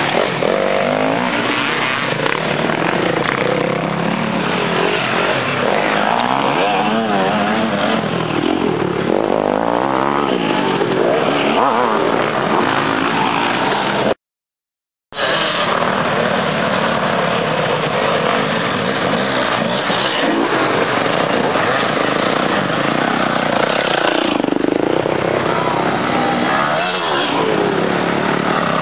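Several off-road dirt bike engines revving as riders pass along a trail one after another, the engine pitch climbing and falling with each throttle change. The sound cuts out completely for about a second near the middle.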